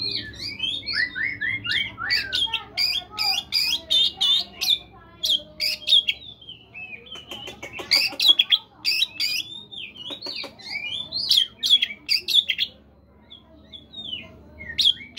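Oriental magpie-robin singing a rapid, varied song of whistled notes sweeping up and down, mixed with sharp clicking notes, broken by short gaps and a longer pause near the end.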